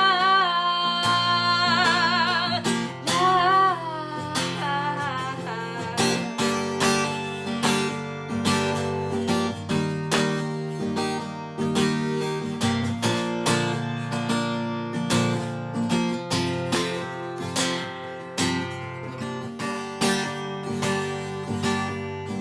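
A girl's singing voice holds the last note with vibrato for the first few seconds, then acoustic guitar strumming carries on alone in a steady rhythm.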